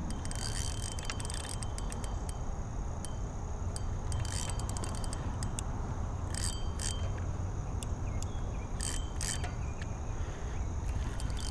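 Spinning reel's drag clicking in short bursts as a hooked fish pulls line, over a low steady rumble.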